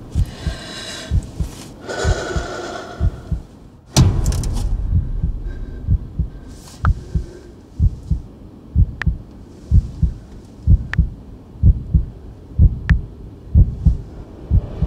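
Low, regular heartbeat-like thudding, about two beats a second, with one sharp hit about four seconds in and a few faint high ticks.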